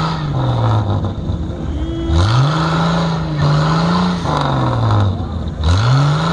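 Off-road jeep's engine revved hard in repeated surges: each rev sweeps up quickly, holds for a couple of seconds, then drops away. It rises again about two seconds in and near the end, as the jeep tries to climb out of the dirt hole that its wheels are dug into.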